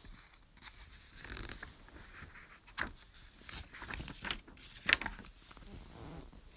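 Paper pages of a book being flipped by hand: soft rustling broken by a few crisp crackles, the loudest about five seconds in.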